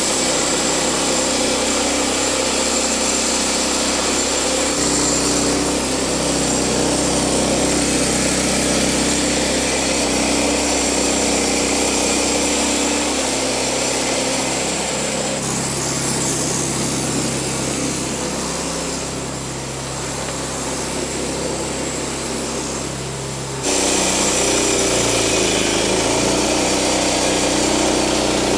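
Wood-Mizer LX50 Start portable band sawmill running steadily, its engine under load as the band blade cuts lengthwise through a log. The tone shifts abruptly near the end.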